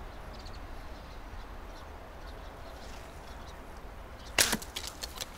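A fishing slingshot shooting its arrow: one loud, sharp snap about four seconds in, followed by a few light clicks, over a low steady background rumble.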